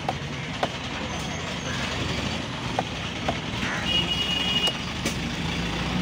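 Cleaver chopping fish chunks on a wooden log chopping block: a handful of sharp, separate knocks of the blade striking the wood. Under them a steady low background rumble, and a short high beep about four seconds in.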